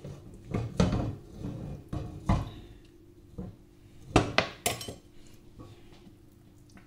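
A utensil scraping and knocking cooked minced beef out of a tilted black pot into a glass baking dish: a string of irregular knocks and scrapes of metal on pot and glass, the loudest about four seconds in.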